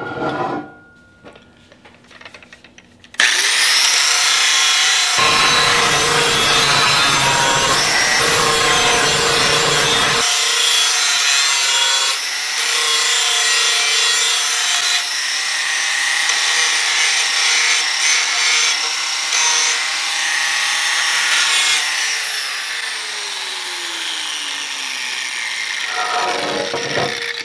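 DeWalt angle grinder starting about three seconds in and grinding a steel edge to clean off paint and mill scale, heavier contact for several seconds early in the cut. Near the end it is switched off and spins down with a falling whine.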